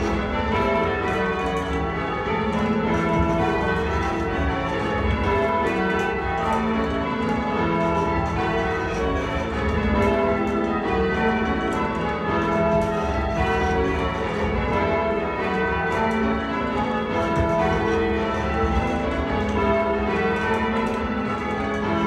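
Church tower bells rung full circle in change ringing, heard from the ringing chamber below the bells: a steady, unbroken stream of bell strokes, each ringing on into the next.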